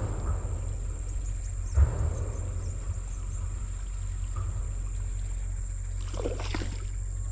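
Outdoor ambience: a steady high-pitched insect drone over a low rumble of wind on the microphone, with a single thump about two seconds in and a brief rustle near the end.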